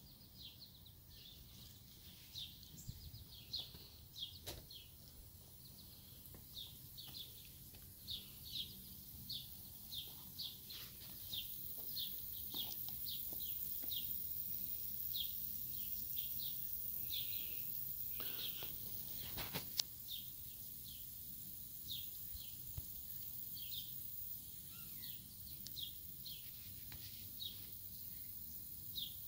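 A bird chirping over and over, short high chirps about one to two a second, over a steady high hiss, with a couple of soft knocks about two-thirds of the way through.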